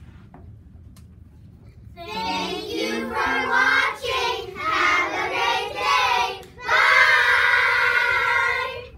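A group of children singing together in unison in short phrases, then holding one long final note for about two seconds.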